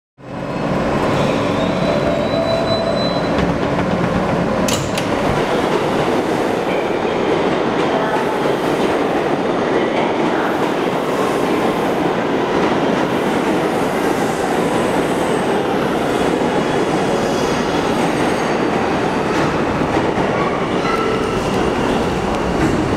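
Kawasaki R211A subway train running into the station and slowing to a halt, its wheels and running gear making a loud, steady rumble.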